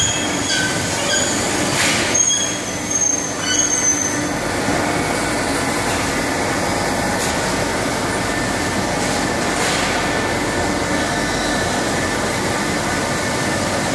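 Polycarbonate-lens injection-moulding machines running in a production hall: a steady mechanical hum holding several fixed tones. Short high squeals come in the first few seconds, and there are two brief hisses, about two seconds in and again near ten seconds.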